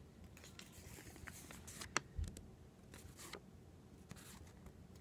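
Faint crinkling and rustling of a folded slip of torn lined notebook paper being unfolded by hand, with a few soft crackles scattered through.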